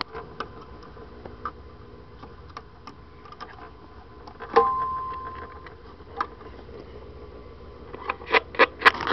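Scattered clicks and knocks of a portable record player being handled as a record is set on it and the tone arm is moved into place, with a short squeak about halfway and a quick run of louder clicks near the end.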